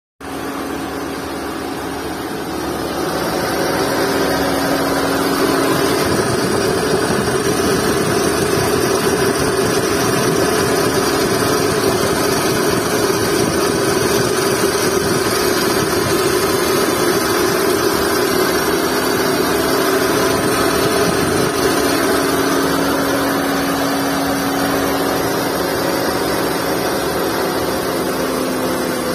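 Skoda Fabia 1.2 petrol engine idling with a steady whine from its ribbed drive belt and belt tensioner pulley, the noise of a worn tensioner bearing. It grows louder about three seconds in.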